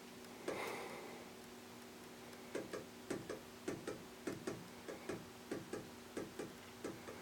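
Early-1980s Homestead Four Winds ceiling fan coasting down from high speed with a faint steady hum. From about two and a half seconds in, its side-mounted speed switch knocks with light ticks, often in pairs, about every half second: a loose switch hitting as the fan spins down.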